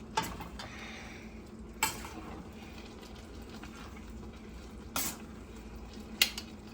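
Spoon stirring macaroni and cheese in a pot, with four sharp knocks of the spoon against the pot, the last one the loudest.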